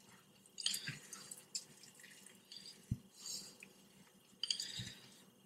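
Spoon stirring a wet dough of whole wheat flour, oats and warm water in a bowl: faint, irregular wet squishing and scraping strokes with a few sharp ticks.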